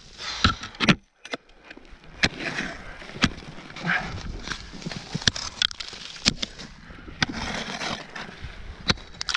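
Ice axe picks knocking and scraping into snow-covered rock, with a sharp knock about once a second and scraping and rustling between.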